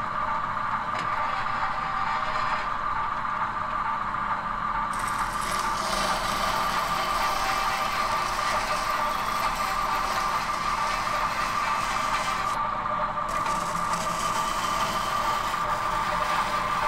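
Steady mechanical whine with a rattling, clattering layer that grows fuller about five seconds in and briefly thins near thirteen seconds.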